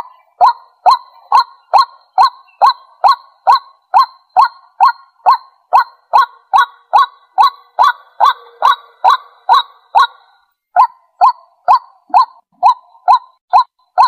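White-breasted waterhen calling: a loud, evenly repeated 'kwak' note about two and a half times a second, breaking off briefly about ten seconds in and then resuming. It is the bird's territorial call, played back as a lure for other waterhens.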